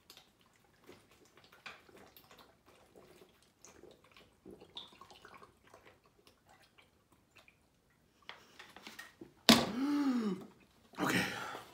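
A person gulping down a bottle of water, with faint swallowing sounds and small clicks for about eight seconds. Then a loud sudden vocal "ahh" whose pitch rises and falls, and a loud breath out just before the end.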